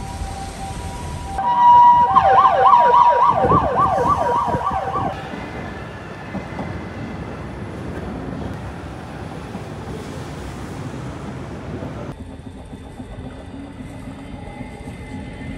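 Emergency vehicle sirens: a two-tone hi-lo siren, joined about a second and a half in by a fast-warbling siren that is loudest for the next few seconds. After that only steady traffic and wind noise remain.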